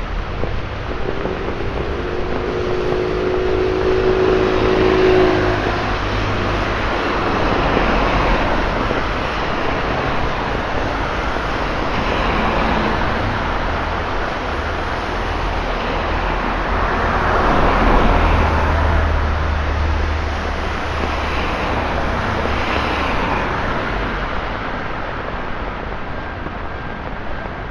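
Road traffic on a wet, flooded street: a string of vehicles passing one after another, their tyres hissing through the water as each swells and fades. The loudest passes about 18 seconds in, with a low engine rumble, and a pitched engine hum is heard in the first few seconds.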